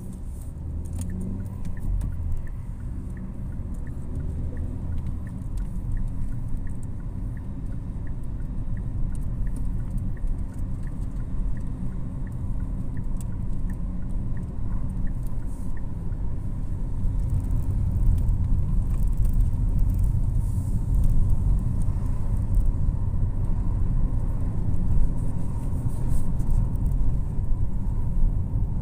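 A car's engine and tyre noise heard from inside the cabin while driving, a steady low rumble that grows somewhat louder in the second half. Through the first half, the turn indicator ticks evenly about twice a second and stops about halfway through.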